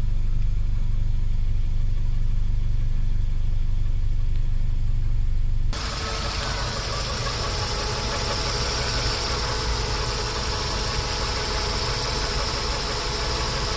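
Car engine idling steadily, with the noise the owner suspects comes from the accessory belt or belts. About six seconds in the sound changes abruptly to a brighter, noisier tone with a steady high hiss over the idle.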